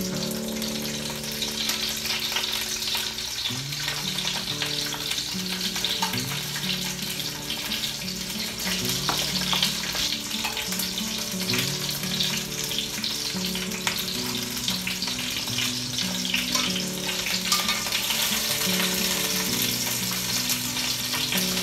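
Halved onions searing in hot olive oil in an enameled cast-iron Dutch oven: a steady sizzle, with occasional light clicks of metal tongs turning them. Soft background music with low sustained notes plays underneath.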